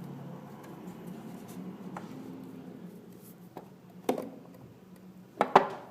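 Overhead door closer making a low, steady groaning hum as the door swings closed, then a sharp click about four seconds in and a loud knock about five and a half seconds in. The closer's arm moves up and down on its own and the whole unit looks about to fall off, which the owner takes for the cause of the noise.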